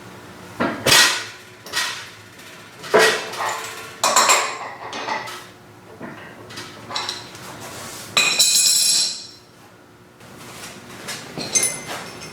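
Metal tools and parts knocking and clinking, a series of sharp taps with some ringing, and a longer clatter of metal about eight seconds in.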